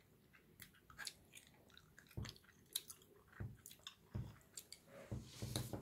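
A person chewing gummy candy close to the microphone: quiet mouth sounds with many short, irregular clicks.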